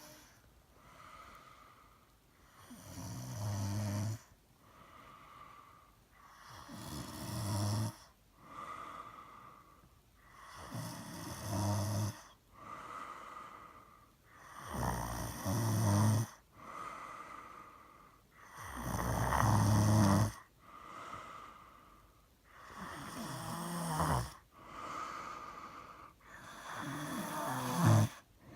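A person snoring heavily, with a snore likened to an engine starting. Seven loud snores come about every four seconds, each building up and then stopping abruptly, with a softer breath between them.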